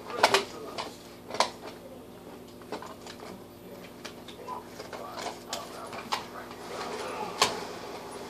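Irregular clicks and knocks of small plastic toy items being handled and set down, the sharpest near the start, about a second and a half in, and near the end.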